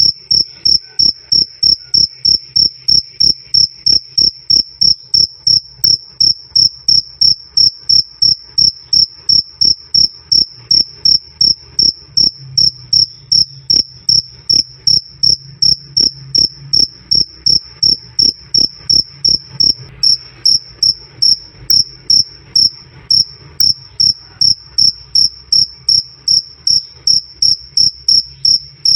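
A cricket chirping loudly and steadily: a clear, high 'krik' repeated evenly, about two to three chirps a second.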